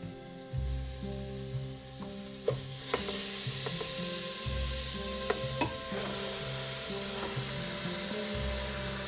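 Chunks of raw flank steak slid off a plastic cutting board into a metal stockpot: a rustling, scraping slide with a few sharp knocks against the pot, over soft background music.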